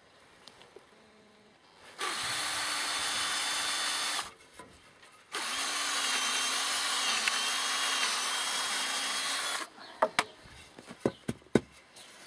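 Power drill running in two bursts, a short one and then a longer one of about four seconds, its motor whine wavering slightly in pitch as it works. A few sharp knocks follow near the end.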